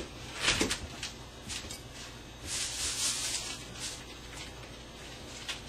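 Small metal clicks and rubbing from a 1911 pistol frame being handled while its sear pin is worked out, the clearest click about half a second in.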